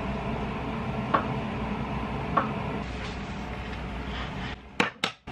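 Kitchen knife slicing a banana on a wooden cutting board, tapping the board twice about a second apart, over a steady low hum. Near the end the hum drops away with two sharp clicks.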